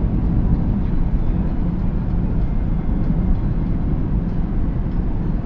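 Car driving on a highway: a steady low rumble of road and engine noise.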